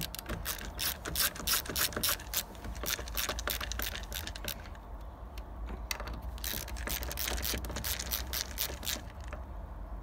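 Hand screwdriver clicking as it is turned back and forth, tightening a screw into a white uPVC flag hinge: rapid clicking for the first four seconds or so, then slower, sparser clicks that stop about a second before the end.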